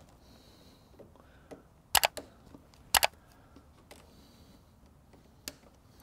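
Wire cutters snipping the excess tails off nylon cable ties: two sharp snips about a second apart, each a quick double click, then a fainter click near the end.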